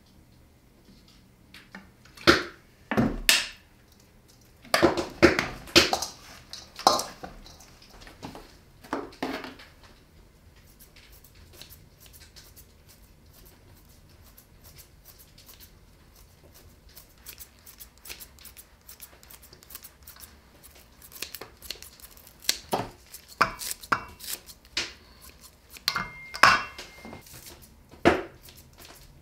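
Sharp clinks and knocks against a stainless steel mixing bowl, then kitchen scissors snipping fresh dill and green onions into the bowl, with a long run of quick small snips in the middle.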